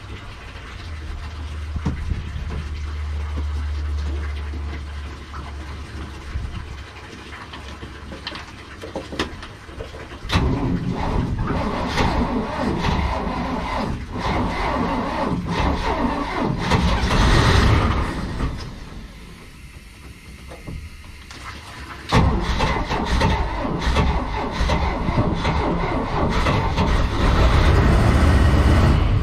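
Carbureted gasoline boat engines being started for the first time: after a low steady hum, an engine catches about ten seconds in and runs. The sound drops away for a couple of seconds around nineteen seconds, then comes back louder about twenty-two seconds in and keeps running.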